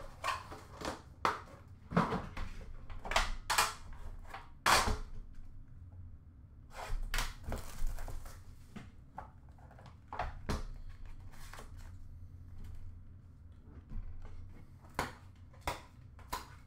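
Irregular clicks, taps and knocks as a metal Upper Deck The Cup hockey card tin is opened by hand and its lid and cards are lifted out and set down on a glass counter. The sharp knocks come thickest in the first few seconds, with a softer shuffling stretch partway through and a few more knocks near the end.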